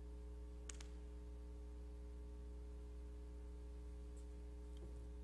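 Faint steady electrical mains hum with a few steady tones above it, and one faint click just under a second in.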